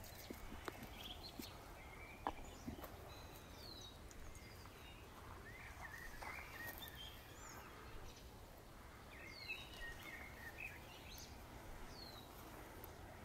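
Songbirds chirping and twittering, including a short downward-sweeping call repeated every few seconds, over a faint background hiss. A few light clicks and rustles in the first seconds come from fruit-tree branches being pulled and plums being picked.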